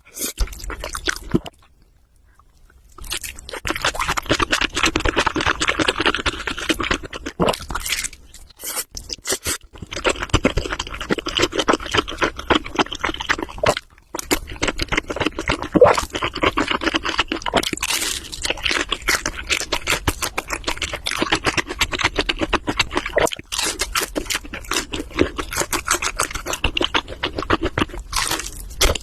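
Close-miked chewing and crunching of food: dense crackling bites, broken by a short pause about two seconds in.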